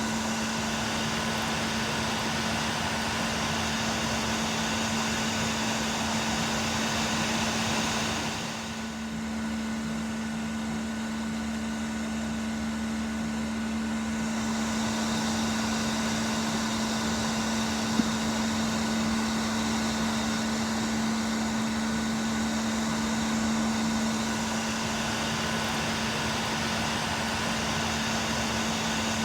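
Blower motor running: a steady rush of air over a constant hum. About eight seconds in, the airy hiss thins out for around six seconds, then comes back, and there is a single faint click about two-thirds of the way through.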